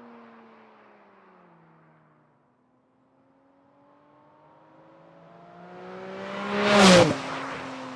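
Porsche 718 Cayman GT4 RS with a Fi-Exhaust valved muffler and catless downpipe, its flat-six driving past on light throttle with the exhaust valves closed. The engine note swells as the car approaches, is loudest about seven seconds in, then drops in pitch as it goes by. A car fading into the distance is heard at the start.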